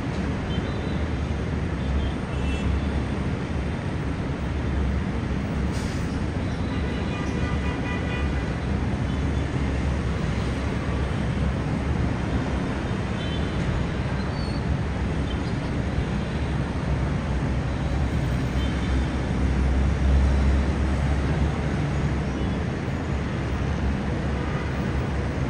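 Steady city traffic noise from a congested multi-lane road: a low, continuous rumble of engines and tyres, with a few faint horn toots.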